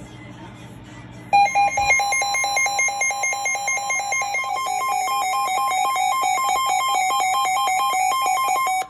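Electronic alarm of rapidly alternating beeps, starting about a second in, over the steady 1050 Hz NOAA Weather Radio warning alert tone, which signals that a warning message is about to follow. The beeping cuts off suddenly near the end, leaving the steady tone.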